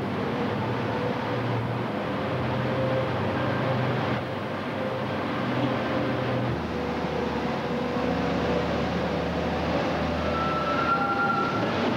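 Engine of an underground wheel loader running under load, a steady mechanical drone whose pitch drops about six and a half seconds in.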